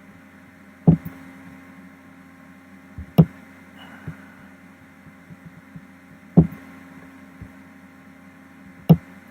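Steady electrical hum with four sharp, low thuds at uneven intervals: about a second in, after three seconds, after six, and near the end. A few fainter clicks fall between them.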